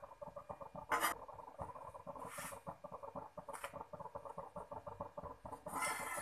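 Crepe sizzling with a fine, rapid crackle on a hot oiled cast-iron dosa tawa while it is rolled up with a steel ladle. There is one sharp knock about a second in and a few brief scrapes later.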